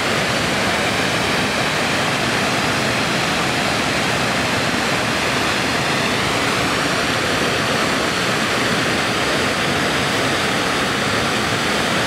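Water of a small river pouring over a low, stepped rock-ledge waterfall: a steady, unbroken rush.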